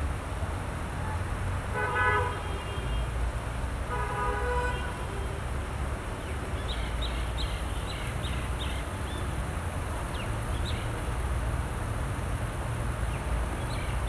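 A vehicle horn honks twice, about two seconds in and again around four seconds in, over a steady low rumble of outdoor background noise. Faint, short high chirps come from about six to eleven seconds in.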